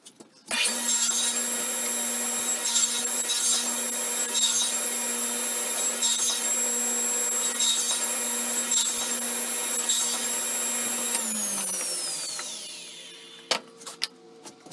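Table saw switched on about half a second in, running with a steady whine while a small wooden piece is cut on a crosscut sled. About eleven seconds in it is switched off, and its pitch falls as the blade spins down, followed by a few knocks near the end.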